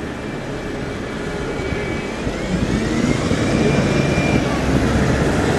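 Single-decker bus approaching and passing close, its engine growing louder as it pulls through, with a thin whine from the drivetrain that rises in pitch about two seconds in and then holds steady.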